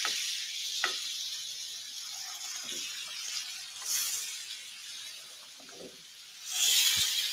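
Butter sizzling as it melts in a frying pan of hot bacon fat, with a few light taps of a utensil stirring it. The sizzle swells louder near the end.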